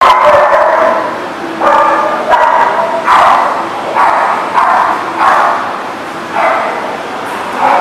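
Dogs barking during rough play, a string of about nine loud barks roughly a second apart, echoing in a bare hard-floored room.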